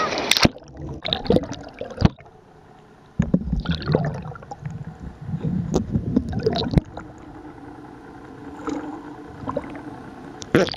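Sea water splashing and gurgling around a camera dipped under the surface from the side of a boat, with sharp splashes about half a second, two seconds and seven seconds in. Between them come choppy low rumbles, then a muffled underwater hush.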